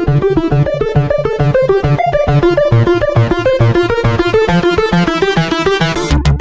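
Electronic music: a fast run of synthesizer or electric-piano notes, with deep bass and drum hits coming in near the end.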